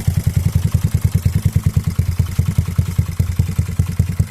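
Yamaha Mio scooter's bored-up, carbureted single-cylinder four-stroke engine idling through a JVT V4 teardrop aftermarket exhaust. It makes a steady, even low putt-putt of about ten exhaust pulses a second.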